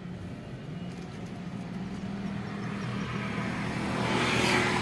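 Daihatsu Gran Max pickup's engine running steadily, heard from inside the cab. Its hum rises slightly a little under two seconds in. Near the end a rush of noise swells up and eases off.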